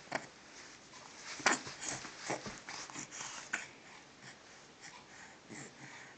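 Baby's short breathy sniffs and catches of breath, the build-up to a sneeze. A series of brief bursts, the sharpest about one and a half seconds in, growing fainter toward the end.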